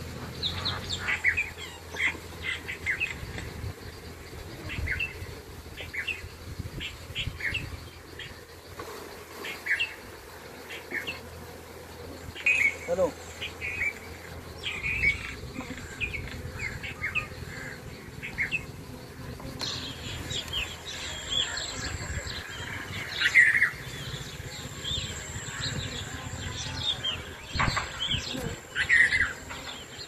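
Small birds chirping in short, repeated calls, over the low hum of honey bees from an open hive.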